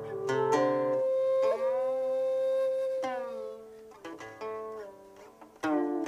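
Guqin plucked with sliding, bending pitches, over a long held xiao note and low cello notes that stop about a second in. The music then thins to a few fading guqin notes sliding in pitch, and all the instruments come back in strongly near the end.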